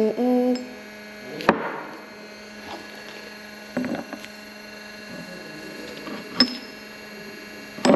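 Steel parts being handled and test-fitted in a chuck's soft jaws: four separate sharp metal clicks and knocks, over a steady hum.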